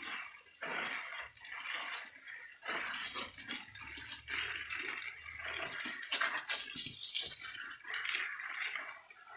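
Water jetting from a handheld spray nozzle and spattering on leaves and a wall, in uneven on-and-off spurts, loudest about two-thirds of the way through.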